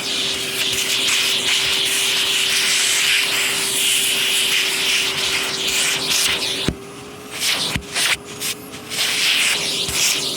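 Vacuum cleaner running over carpet: a steady motor hum under a suction hiss that swells and fades as the head is pushed back and forth. About two-thirds of the way in the hiss drops away for a second or two, with a couple of sharp knocks.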